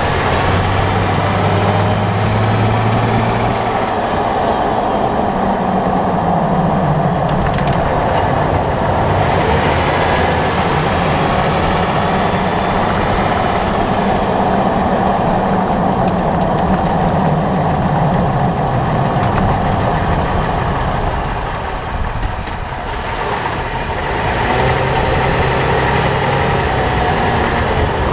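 Tyre and road noise from a 2011 Toyota 4Runner on the move, heard at the front wheel from under the body, with the engine hum rising and falling in pitch.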